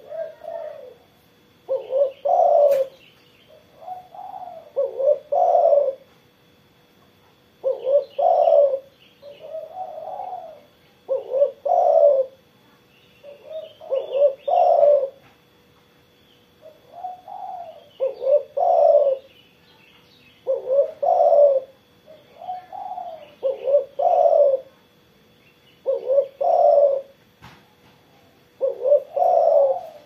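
Spotted dove (tekukur) cooing steadily: short phrases of a few low, throaty coos repeated every two to three seconds.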